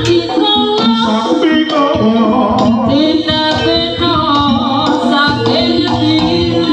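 Jaranan music: a melodic vocal line sung over drums and pitched percussion, running steadily.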